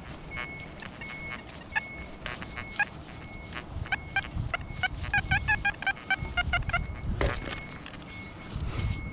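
XP Deus metal detector's audio: short steady beep tones repeating on and off, then a fast run of choppy multi-pitched beeps in the middle as the coil sweeps over targets in trash-filled ground.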